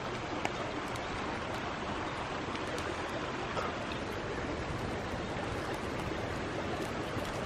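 Steady rushing of running water, with a few faint clicks.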